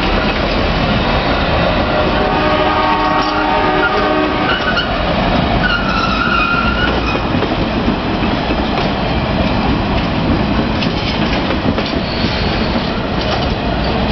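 Norfolk Southern office car special's passenger cars rolling past with a steady rumble and wheels clacking over rail joints. The locomotive's horn sounds for about two seconds a few seconds in, and a brief high wheel squeal follows.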